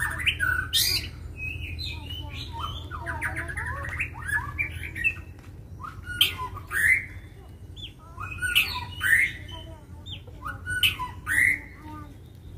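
White-rumped shamas (murai batu) calling loudly: a varied run of whistled notes in the first few seconds, then short rising calls in pairs about every two seconds. This is the aggressive fighting song (tarung) of the species.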